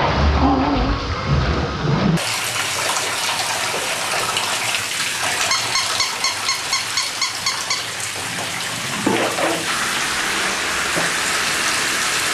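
Shower running, water spraying onto a person and tiled walls in a steady hiss. A low rumble of close handling noise covers the first two seconds, and a quick run of short, evenly spaced ticks comes about six seconds in.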